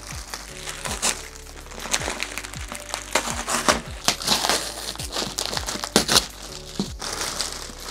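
Clear plastic wrapping crinkling and rustling as it is pulled open by hand, loudest in the middle of the stretch, over background music with a steady beat.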